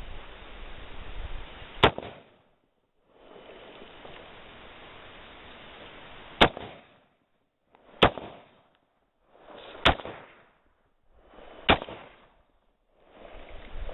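Five single semi-automatic shots from a DPMS Panther Arms Oracle AR-15 rifle in 5.56 mm / .223, the first two about four and a half seconds apart, the last four coming roughly every two seconds.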